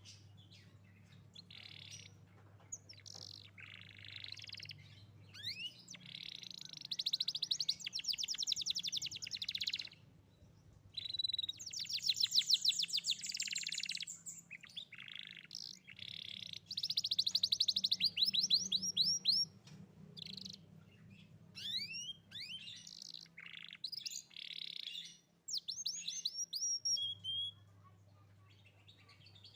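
Young domestic canary singing: bursts of very fast trills and quick rising whistled sweeps, broken by short pauses.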